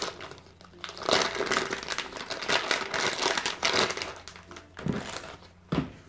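Clear plastic packaging bag crinkling as it is pulled off a silicone pop-it fidget toy, followed by two short knocks near the end.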